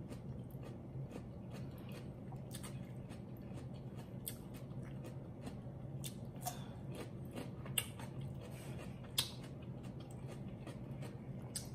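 A person biting and chewing crisp cucumber slices: soft wet chewing with a handful of sharper crunches scattered a second or two apart.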